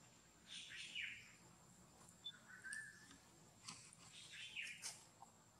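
Faint, high-pitched animal chirps: a couple of short falling chirps about half a second in, a brief flat squeak near the middle, and more falling chirps about four and a half seconds in.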